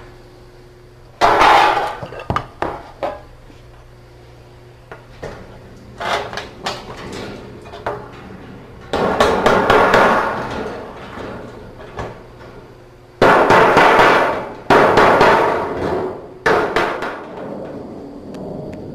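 Hammer striking galvanized sheet-metal ductwork, closing the seams to join the duct pieces together; several runs of blows with metallic ringing, separated by short pauses, the loudest runs in the second half.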